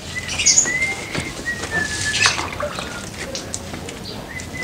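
Birds chirping and whistling, several held whistled notes and high chirps, over water splashing and dripping as a motor scooter is washed by hand from a bucket.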